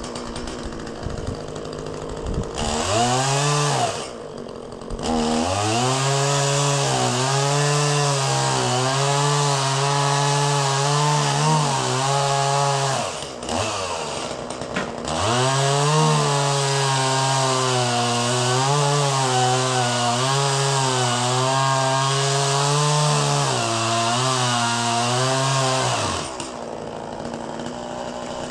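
Chainsaw cutting a notch in a tree: it revs up about two and a half seconds in and runs at a steady high pitch under load, with the throttle let off twice briefly, then drops back near the end.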